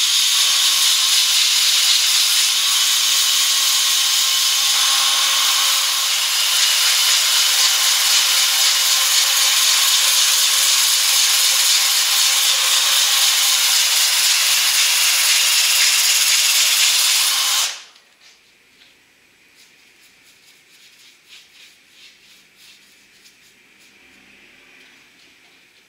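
Cordless drill spinning a sanding disc against the inside of a turned ash bowl: a steady whirring hiss of abrasive on wood that cuts off suddenly about 18 seconds in. After it, only faint light scratching strokes of a brush applying sealer to the bowl.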